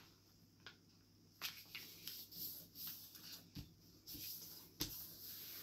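Sheet of paper being folded by hand and its crease pressed flat: faint rustling with a few short, soft taps.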